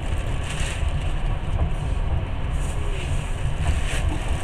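Long-distance passenger train running along the track, heard from inside the carriage: a steady low rumble of wheels on rails.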